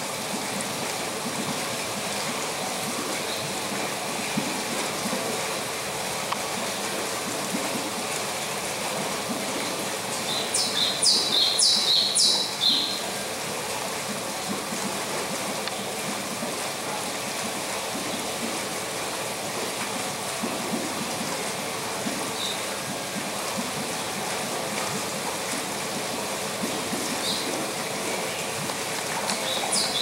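Steady sound of running water from an aviary stream or pool. Partway through, a bird gives a quick series of about six high, bright chirps, the loudest sound here, and a single faint chirp comes near the end.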